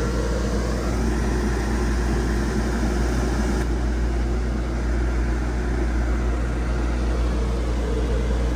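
Dometic rooftop RV air conditioner running, pretty loud: a steady low hum from the compressor and fan with a broad airy hiss. The higher part of the hiss dulls a little about four seconds in.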